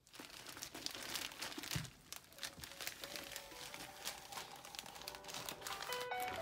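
Packaging crinkling and tearing under the hands in quick, irregular crackles, as for an iPad box being unwrapped. Soft music fades in under it from about halfway and gets stronger near the end.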